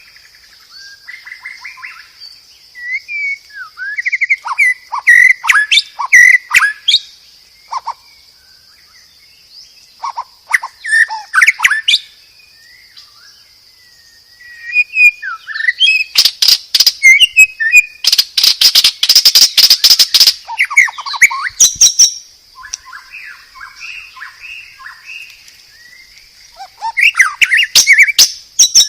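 White-rumped shama singing loudly in full song: varied whistled phrases broken by short pauses, with a long run of rapid harsh rattling and chattering notes about two-thirds of the way through.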